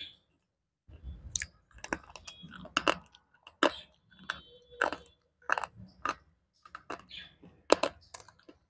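Slate pencil being bitten and chewed right at the microphone. Sharp, crisp crunches come irregularly, about one or two a second, with softer grinding between them.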